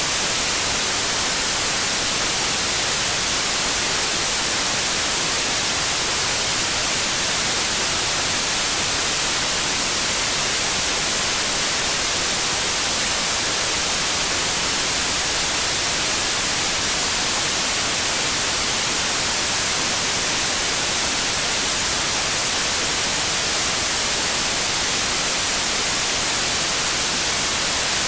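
Steady white noise: an even, unchanging hiss, brightest in the treble, played continuously as a soothing sound for a crying baby.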